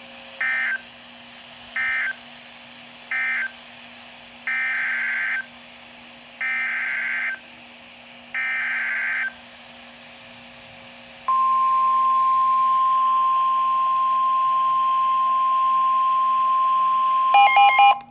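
Emergency Alert System SAME data bursts over weather radio: three short end-of-message squawks, then three longer header bursts about a second each. About eleven seconds in, the steady high-pitched 1050 Hz weather-radio warning alert tone starts, broken near the end by a brief choppy burst.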